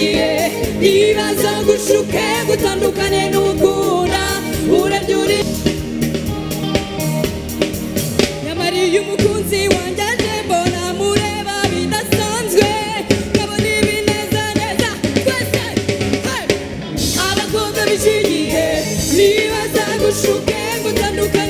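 Live band music with a singer, backed by a drum kit, played loud and continuous, with a brief break near the end.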